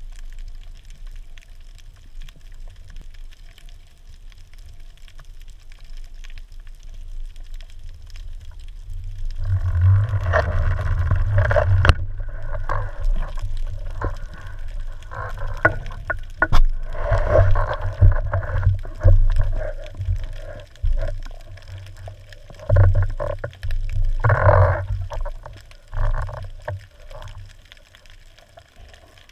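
Water noise heard underwater through a GoPro camera's waterproof housing: a low steady rumble, then, from about ten seconds in, louder irregular rushes of moving water as the spearfisherman swims up toward the surface.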